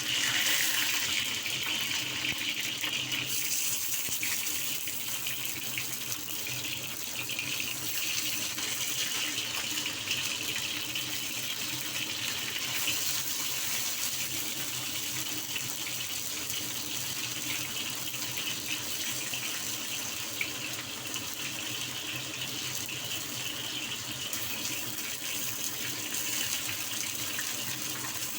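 Fish-paste-stuffed bell peppers frying in hot oil in a wok: a steady sizzle that starts abruptly.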